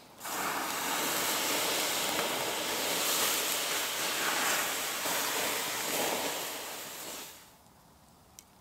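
Water poured from a bottle onto hot campfire embers, hissing and steaming as the fire is put out. The hiss starts suddenly and stops about seven seconds later.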